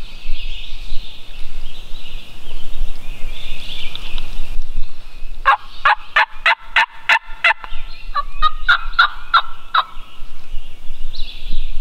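Wild turkey calling: a run of about nine sharp notes, roughly four a second, starting about halfway through, then a second, softer run of notes.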